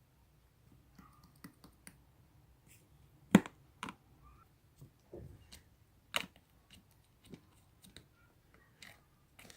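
Clay slime being squished and poked by hand, giving irregular sharp clicks and pops. The loudest pop comes about a third of the way in.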